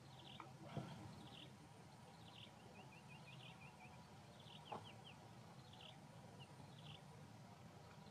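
Faint chirping of small birds: short high chirps every second or so, with a quick run of about six short falling notes near the middle. Two soft clicks stand out, about a second in and near the middle.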